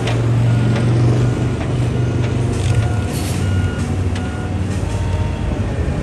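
Concrete mixer truck's diesel engine running steadily while its reversing alarm beeps repeatedly, about every two-thirds of a second, with a short hiss of air about three seconds in.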